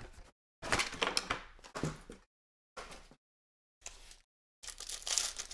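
Foil wrappers of Panini Prizm football card packs crinkling and tearing as the packs are handled and ripped open, in about five short crackly bursts.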